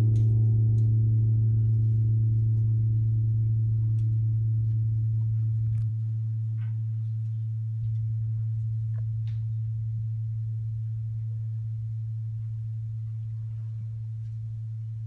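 A deep ringing tone from a single struck metal instrument, slowly fading, its higher overtones dying away within the first few seconds. A few faint clicks sound over it.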